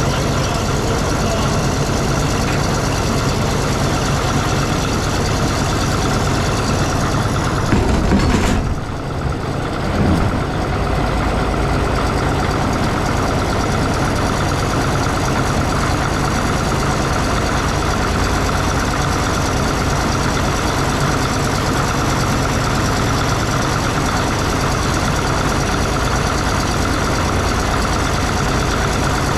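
Heavy diesel engine idling steadily. About eight seconds in it briefly gets louder, then drops for a second or two before settling back to a steady idle.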